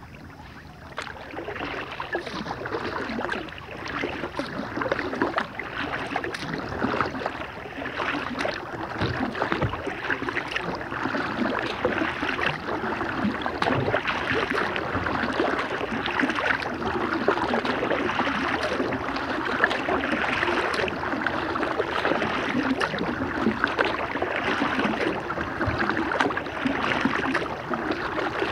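Water splashing and lapping against a plastic Lifetime kayak's hull as it is paddled on calm water, a steady crackly sloshing with paddle drips.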